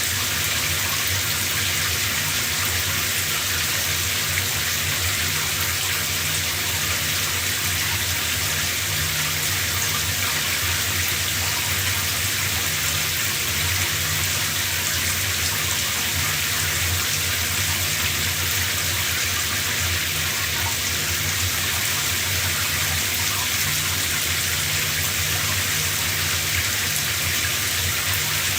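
Shower running steadily: water spraying from the showerhead and splashing down in a small room, an even hiss with a low steady rumble beneath.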